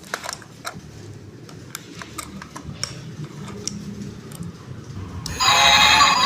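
A series of small sharp clicks, then about five seconds in a loud electronic toy sound of many steady tones starts suddenly and keeps going.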